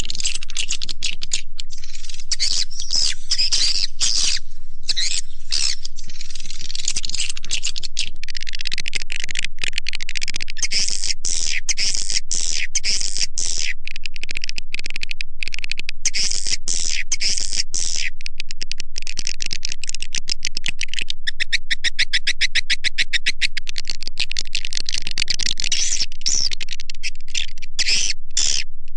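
Swiftlet lure call recording of edible-nest swiftlets: dense, continuous high-pitched chirping and twittering. About three quarters of the way through there is a fast run of rapid clicking pulses. It is the kind of call track played in swiftlet houses to draw swiftlets in to roost and nest.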